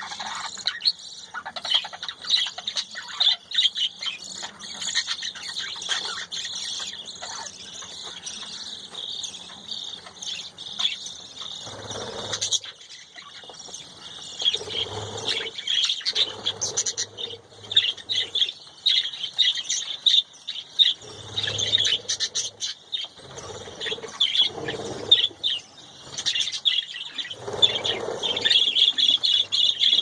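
A flock of budgerigars chattering nonstop: a dense, busy mix of high chirps and warbles from many birds at once, with a few lower, rougher bursts every few seconds in the second half.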